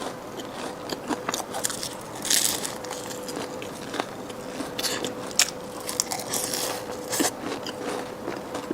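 Close-miked eating of a flaky mille-feuille egg tart: crisp bites of layered pastry crackling and crunching, with chewing between them. A faint steady hum runs underneath.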